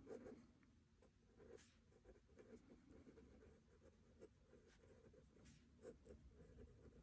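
Faint scratching of a pen writing on notebook paper, in small irregular strokes.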